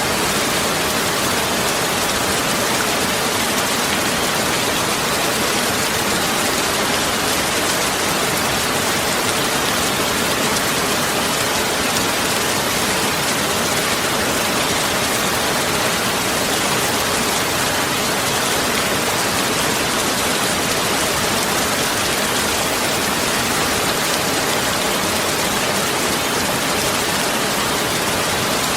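Heavy rain falling steadily, a dense, even hiss of drops without a break.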